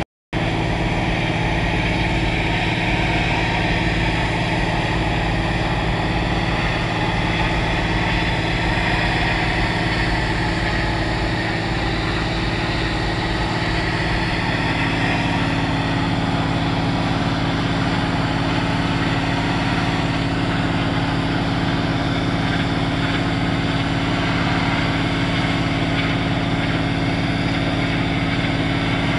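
Hot-water high-pressure washer (about 250 bar) running steadily: the even hum of its motor and pump under the hiss of the water jet blasting a brick wall. About halfway through, a new steady tone joins the hum.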